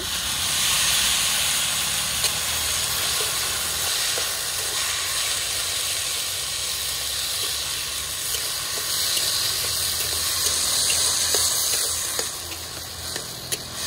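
Water poured in a steady stream from a steel pot onto a heap of sugar in a metal kadhai, making a continuous splashing hiss that eases off near the end.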